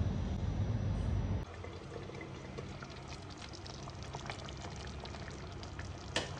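A low outdoor rumble stops suddenly about a second and a half in. Then comes aloo palak, a thick spinach-and-potato curry, simmering in a frying pan with faint, irregular bubbling pops, and one sharper click near the end.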